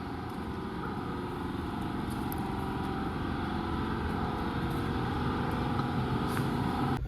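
Truck engine running steadily, slowly getting louder.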